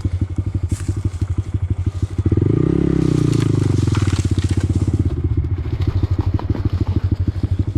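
Honda Grom's small single-cylinder four-stroke engine running under way, revving up sharply a little over two seconds in, then easing back to a steady pull.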